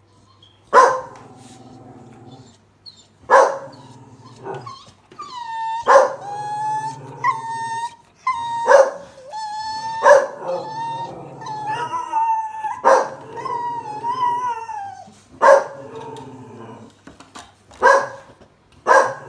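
Blue Staffordshire Bull Terrier vocalising: sharp single barks every two to three seconds, and from about five to fifteen seconds in, long wavering howls and whines that bend up and down in pitch, her chatty 'talking'.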